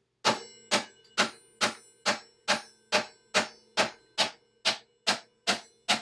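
Hammer with a plastic-capped face striking a star-nut setting tool in a mountain bike's steerer tube. The blows come evenly, about two a second, and each leaves a short metallic ring as the tool drives the star nut down the steerer.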